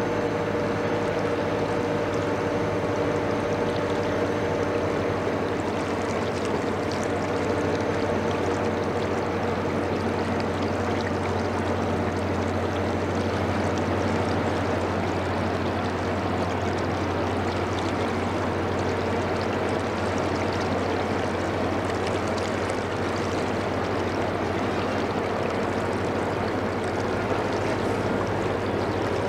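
Steady low mechanical hum under a continuous rushing noise. A higher steady whine fades out about halfway through.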